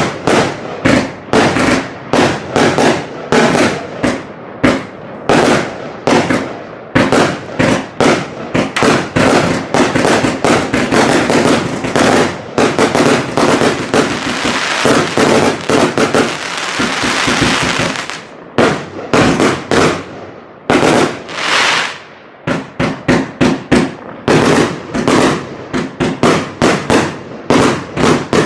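A 196-shot consumer firework battery with 25 and 30 mm tubes firing rapid shots, several a second. About halfway through the shots run together into a few seconds of continuous noise before separate shots resume.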